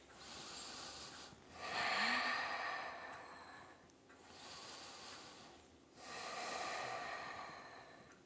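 A man's slow, deep breathing, heard as four long, soft rushing breaths, about two full in-and-out cycles, the loudest about two seconds in.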